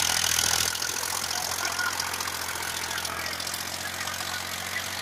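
Powertrac Euro tractor's diesel engine running steadily under load while pulling a rotary tiller through dry soil, with a hiss over the engine note that is loudest in the first second.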